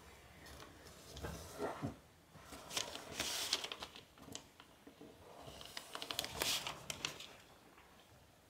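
A sheet of origami paper rustling and crackling as hands fold and crease its pleated edge, in two louder bursts about three and six seconds in.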